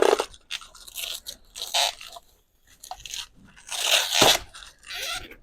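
Packaging being handled and pulled off a new bike: irregular bursts of crinkling and rustling wrap, loudest a little before the end.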